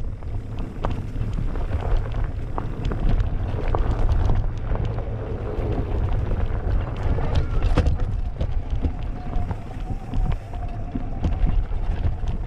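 Mountain bike riding fast over a dirt singletrack trail, with heavy wind buffeting the camera microphone and frequent clicks and rattles from the bike over bumps.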